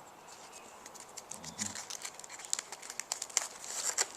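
Suman sa ibos being unwrapped by hand: its leaf wrapper rustling and crackling in quick, irregular little clicks that grow louder and busier near the end.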